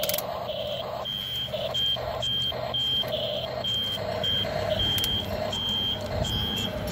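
Electronic warning beeps from a toy RC excavator's sound unit: a short high beep repeating about twice a second, paired with a lower pulsing tone, over a low hum as the excavator swings and works its arm.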